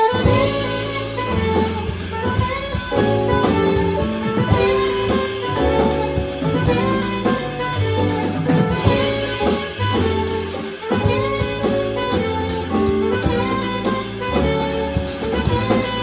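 Small jazz combo playing: saxophone carrying the melody over piano, upright bass and drum kit, the whole band coming in together at once.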